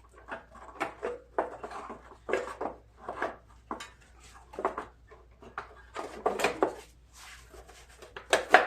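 Engine shroud of a riding lawn mower being fitted back over the engine: irregular metal clanks, rattles and scrapes as it is worked into line, the loudest clank near the end.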